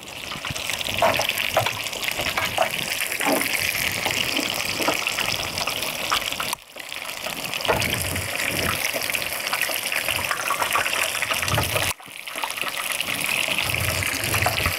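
Fish deep-frying in hot oil: a steady sizzle that drops out briefly twice.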